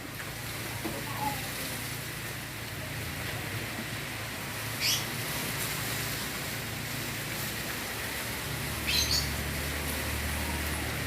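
Strong wind blowing with a steady low rumble, and two short high bird chirps, one about five seconds in and one near nine seconds.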